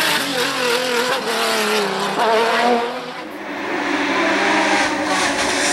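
Ferrari 550 GT's V12 engine at high revs under full throttle, its pitch rising and falling as the race car pulls away. It fades a little after three seconds in, then grows louder again as the car comes back towards the microphone.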